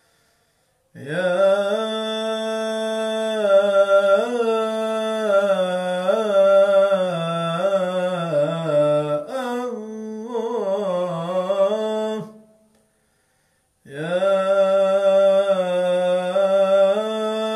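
A man chanting the salâ, the Arabic blessing on the Prophet, solo into a microphone: a long melismatic line of held, wavering notes with quick ornaments. It starts about a second in, runs about eleven seconds, breaks for a breath, and a new phrase begins near the end.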